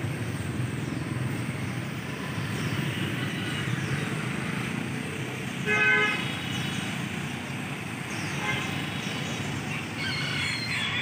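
Street traffic running steadily, with a vehicle horn giving one short toot about six seconds in, the loudest sound.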